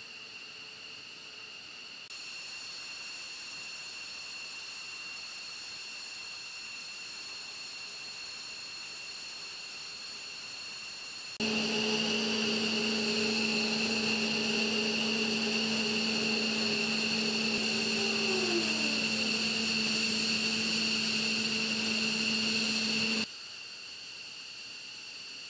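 Steady high-pitched whine of jet turbine machinery on an aircraft flight line. About eleven seconds in it turns abruptly louder with a low steady hum added, one tone sliding downward a little past halfway, then it drops back abruptly near the end.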